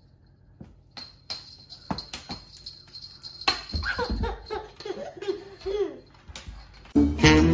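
A baby laughing in high squealing giggles after a few seconds of scattered light taps and knocks as a cat pounces on a feather wand toy. Music starts near the end.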